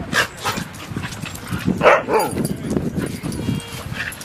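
Dogs barking in play: a few short, sharp barks a second or two apart.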